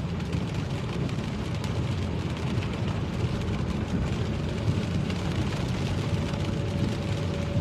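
Inside a car driving in heavy rain: a steady rumble of engine and tyres on the wet road, with rain hitting the roof and windscreen. A faint steady whine comes in near the end.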